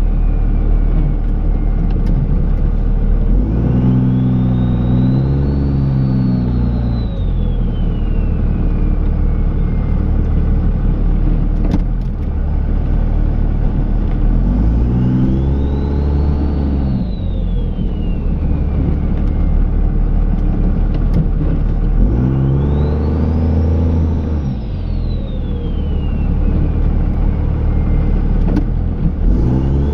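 Dodge Ram's Cummins turbo-diesel engine revving up and easing off three times while plowing snow, each rise carrying a turbo whistle that climbs and falls away. A few sharp knocks sound over it.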